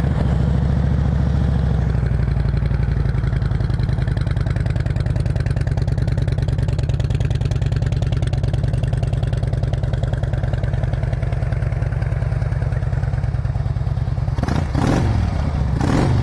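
2008 Harley-Davidson Ultra Classic's 96-cubic-inch V-twin idling steadily with an even pulse through aftermarket slip-on mufflers, just after being started. Near the end the throttle is blipped twice, the revs rising and falling quickly each time.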